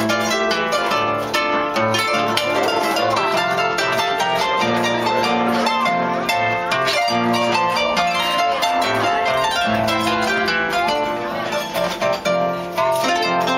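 Harp playing a lively tune of quick plucked notes over a repeating bass line.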